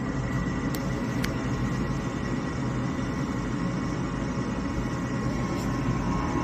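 Gas furnace's inducer draft motor running steadily with a low hum at start-up, the pre-purge before the pressure switch closes and the igniter comes on. Two faint ticks come about a second in.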